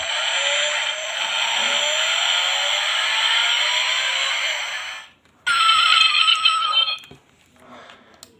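Die-cast Bugatti Divo model car's built-in sound module playing an engine start-and-rev effect through its tiny speaker, tinny with repeated rising sweeps, cutting off about five seconds in. A second, shorter electronic sound with a steady high tone follows about half a second later and stops about two seconds after that.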